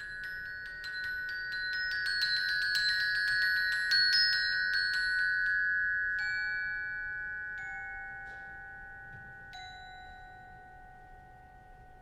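Mallet percussion on ringing metal bars, glockenspiel-like: a fast flurry of repeated high struck notes builds to its loudest about four seconds in. It then thins to a few single, lower notes left to ring and die away.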